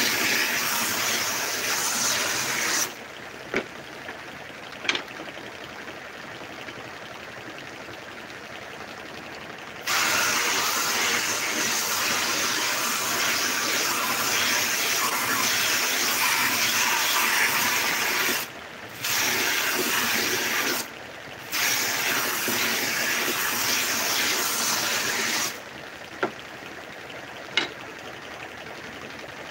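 Homemade belt sander sanding wooden strips: a loud, steady hiss while wood is pressed against the moving abrasive belt, first briefly, then in a long pass broken by two short pauses. Between passes the quieter sound of the belt running carries on, with a few sharp clicks.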